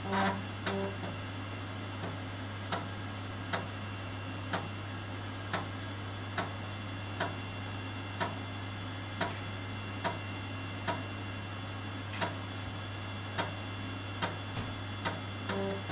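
YE-Data YD-380B 5.25-inch 1.2 MB high-density floppy drive writing files: its head stepper clicks about once a second as it moves from track to track, with a short buzzing seek at the start and another near the end. A steady hum runs underneath.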